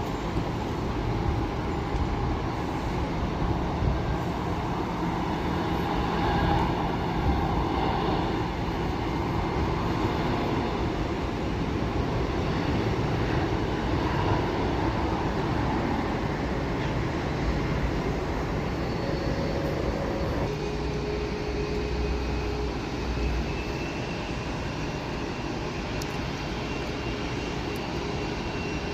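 Airliner engines running: a steady, continuous rumble and rush, with a faint steady whine coming in about two-thirds of the way through.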